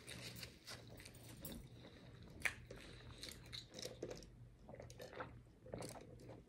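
Faint chewing and crunching of fried chicken wings and fries, with one sharper crunch about two and a half seconds in.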